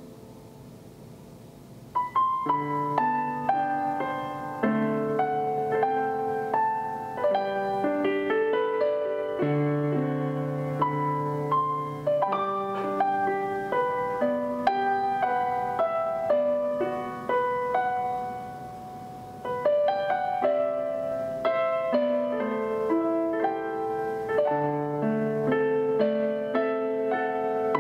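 Background piano music: a gentle melody of single notes over a soft bass line. It comes in about two seconds in and dips briefly about two-thirds of the way through.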